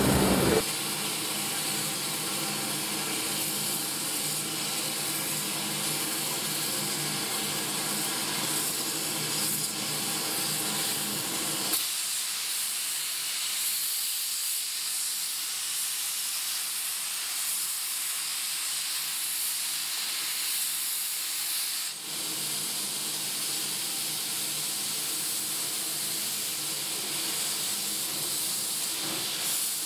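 Steam hissing steadily from the small 0-4-0 tank steam locomotive Flagg Coal Company No. 75 as it stands with its fire made up, without the beat of exhaust chuffs.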